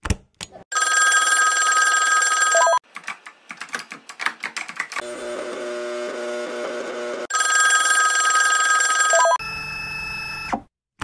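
Electronic ringing sound effects: a loud, high ringing tone lasting about two seconds, then a run of irregular clicking, then a lower steady buzz. The loud ringing comes back for about two seconds, followed by a softer tone that stops shortly before the end.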